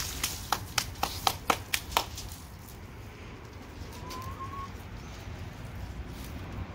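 Backyard chickens clucking: a quick run of about seven short clucks, roughly four a second, in the first two seconds, then a low steady background with one brief faint chirp about four seconds in.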